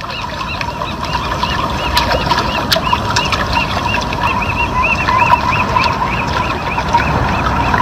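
A bird calling over and over in short arched chirps, about three or four a second, over a steady low rumble of outdoor noise.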